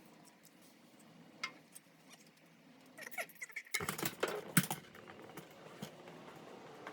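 Wet clip-in hair extensions being lathered and rinsed by hand in a sink: soft wet squishing and patter, with a run of louder handling clicks and rustles about four seconds in.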